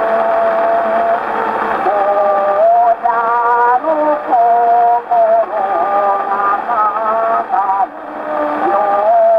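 A Taisho-era acoustically recorded shosei-bushi song playing from an 80 rpm shellac disc on a Victor Victrola acoustic phonograph. It is a melody of held and stepping notes, thin and narrow in tone, over steady surface hiss.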